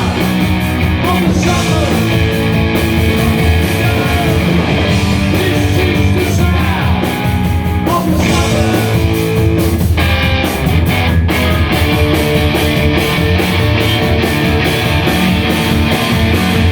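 Live punk rock band playing loudly: electric guitar, bass and drums, with a voice singing at times.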